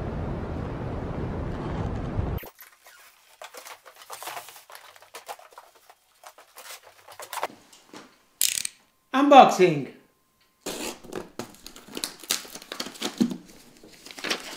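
About two seconds of steady hall din that cuts off abruptly. It is followed by short scattered crackles, clicks and rustles of cardboard shipping boxes and paper being handled.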